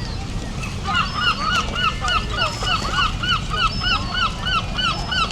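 Geese honking in a fast, steady series, about three calls a second, starting about a second in, over a low rumble of wind on the microphone.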